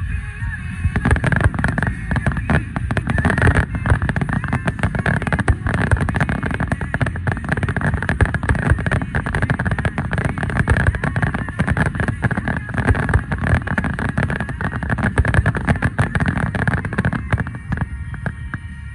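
A fireworks display going off close by: a rapid, continuous run of bangs and crackling over a deep rumble.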